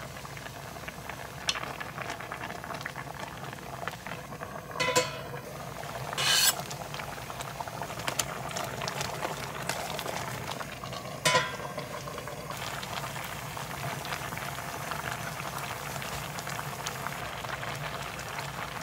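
Spicy braised cod (daegu-jjim) in red chili sauce simmering in a pan, a steady bubbling and sizzling. A few sharp clinks and knocks, like a utensil striking the pan, cut through it.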